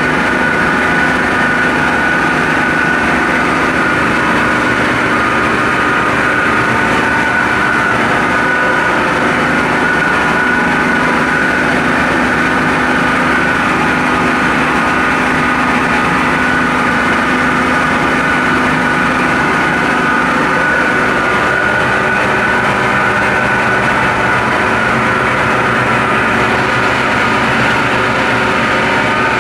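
Micro-hydro turbine and generator running steadily: a constant loud mechanical din with a steady high whine and a lower hum that do not change.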